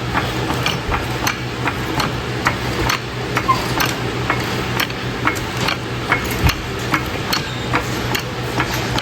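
Floor jack being pumped, its metal handle and pump clicking about two to three times a second over a steady low hum.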